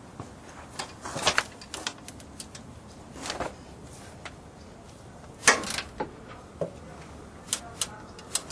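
Irregular clacks and clicks from a 3/8-inch ratchet with a white pipe cheater bar slipped over its handle, as the transmission drain bolt is worked loose. The loudest clack comes about five and a half seconds in.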